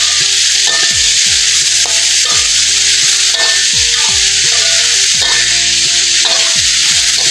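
Pineapple chunks sizzling in hot oil in a wok, stirred and turned with a metal slotted spatula. Background music plays underneath.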